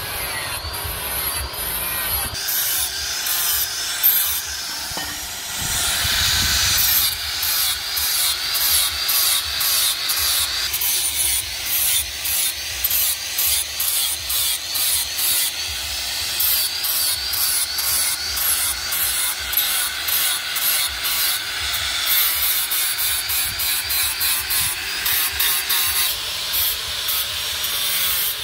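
Handheld angle grinder working a steel knife blade. It runs steadily at first, then pulses about twice a second from several seconds in, as the blade is worked in repeated strokes.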